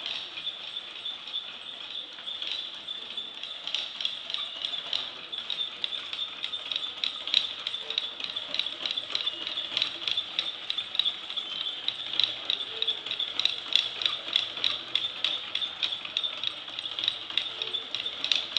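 Wooden automaton mechanism running: cams, followers and gears clicking and rattling without pause, busier from about six seconds in, over a steady high whine.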